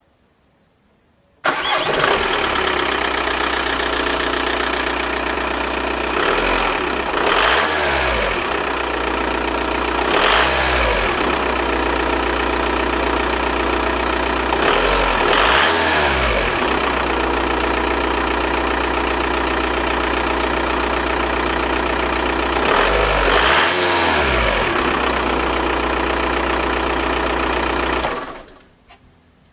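Škoda Octavia's 1.9 TDI four-cylinder turbodiesel engine starts about a second and a half in, idles steadily, and is revved briefly four times, each rev rising and falling back to idle. It is switched off near the end.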